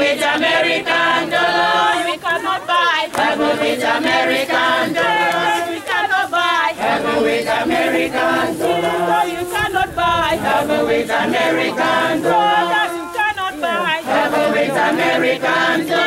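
A church choir and congregation singing together unaccompanied, many voices holding long sung notes.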